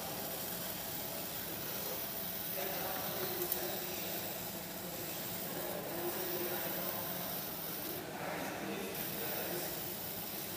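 Steady hiss with a faint hum from a 50 W fiber laser marking machine engraving a silver sheet. Faint voices talk in the background through the middle of it.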